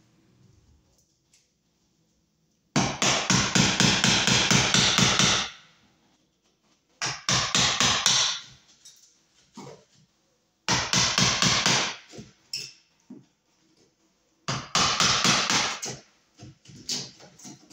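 A hammer striking rapidly to break an opening through the wall near the ceiling, in four bursts of quick, even blows separated by pauses.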